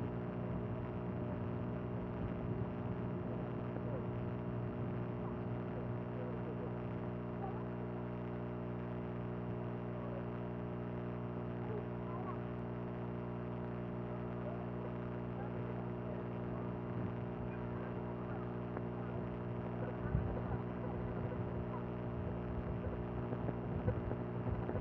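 A steady, unchanging machine hum made of many pitched tones, with faint wavering traces over it and a few soft low bumps near the end.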